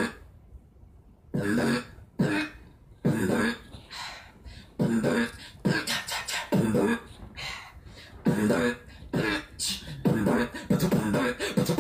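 A young woman beatboxing: short rhythmic mouth beats mixed with pitched vocal sounds, starting about a second in, one or two hits a second.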